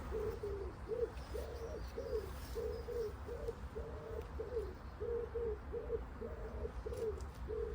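A pigeon cooing: a steady string of short, low coo notes, about two or three a second, some dipping in pitch.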